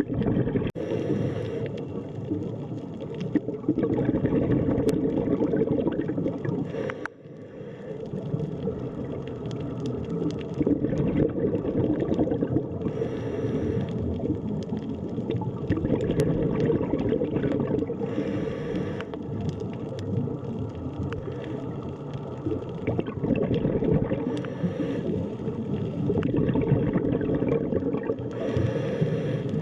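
Underwater ambience: a steady, dense low rumbling wash of water, with short hissing bubble bursts recurring every few seconds and a brief drop in level about seven seconds in.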